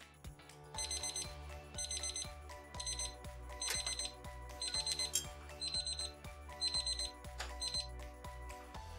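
Digital probe thermometer alarm beeping: short rapid trills of high beeps, about one a second. This signals that the boiling sugar syrup has reached its set temperature of 330°F.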